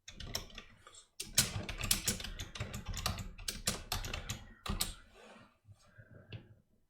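Typing on a computer keyboard to enter a console command. There is a fast, steady run of key clicks for about three and a half seconds, with a few scattered keystrokes before and after it.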